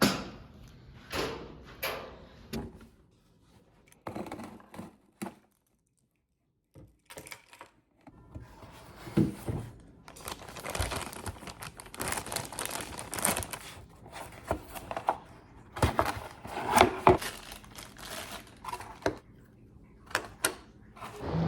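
Handling noises: crinkling and rustling with scattered clicks and knocks. They stop completely for a couple of seconds about six seconds in, then carry on.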